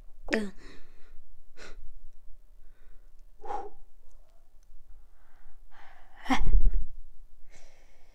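A person sighing and breathing hard, with several short gasps and one loud burst of breath about six and a half seconds in.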